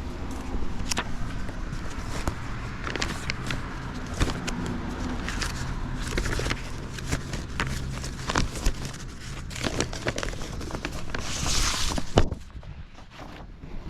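Paper handling: old paper service manuals and booklets being shuffled, flipped and set down, with scattered sharp taps and rustles. There is a low steady hum underneath, and a longer rustle about eleven seconds in.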